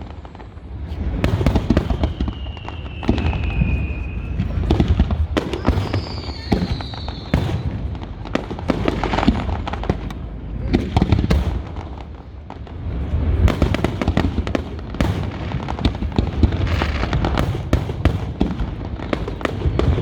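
Fireworks display going off in rapid succession: many sharp bangs and crackles over a continuous low rumble of booms. A few high whistling tones falling in pitch cut through near the start and again a few seconds later.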